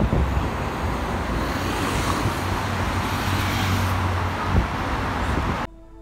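Steady outdoor traffic noise with a heavy low rumble, which cuts off suddenly near the end.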